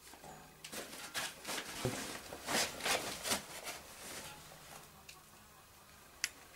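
Rustling and scraping of clothing and a ground sheet against rock and metal gate bars as a person squeezes through a tight gap, in quick irregular strokes that thin out after about four seconds, with one sharp click near the end.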